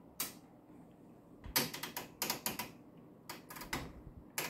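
Rotary range switches on a Tektronix 7603 oscilloscope's plug-in units clicking through their detents as the volts-per-division and time-per-division knobs are turned: a single click, then quick runs of several clicks, and one more near the end.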